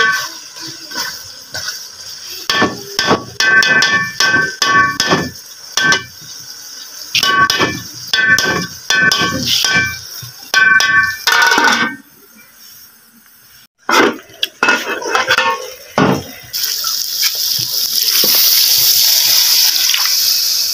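Metal spatula stirring and scraping frying meat curry in an aluminium pot, quick ringing scrapes and knocks against the pot wall for about twelve seconds, then a few more after a short lull. Some four seconds before the end, water goes into the hot pot and a steady hiss takes over.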